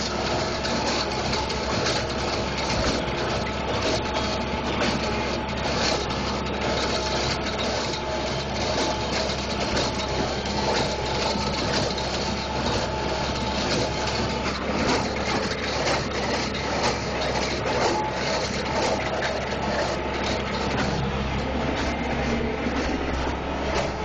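A tractor engine running steadily under load while driving a New Holland small square baler through its PTO shaft, with the baler's knocks and rattles as it picks up and packs hay.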